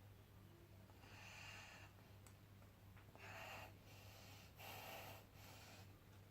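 Faint breathing of a person doing yoga poses: three soft breaths, each lasting about half a second to a second, over a steady low hum.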